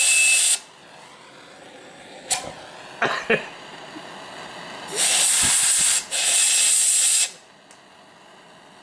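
Compressed-air blow nozzle hissing in bursts into the lid hole of a mason-jar pulse jet, feeding it air to get it running. One burst stops about half a second in, and two more come back to back from about five to seven seconds. In the quieter gap, a few short sharp pops.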